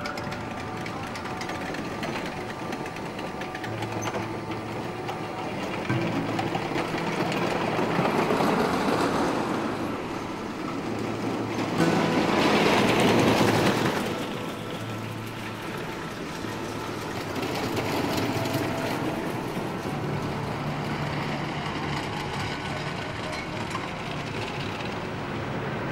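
Wooden roller coaster train (an NAD Century Flyer on the Big Dipper) rumbling and clattering along its track. It swells about eight seconds in and is loudest a little after twelve seconds, as the train comes down a drop.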